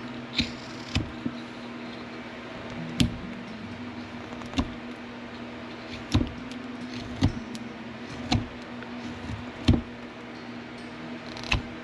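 Whittling knife slicing into a basswood block by hand: about ten short, sharp cuts at an uneven pace, roughly one a second, each one paring off a chip, over a steady low hum.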